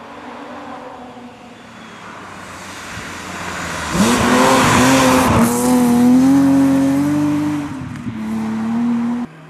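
Rally car approaching and passing at full throttle on a snowy gravel stage, the engine rising to a loud, high-pitched run with a brief dip in pitch at a gear change, and a hiss of tyres and thrown snow as it goes by. The engine note falls away as the car moves off, then cuts off suddenly near the end.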